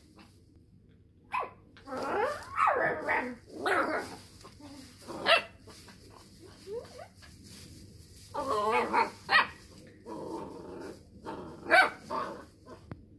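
A 12-week-old working cocker spaniel puppy barking and yowling in several bouts, some calls sliding down in pitch like a howl.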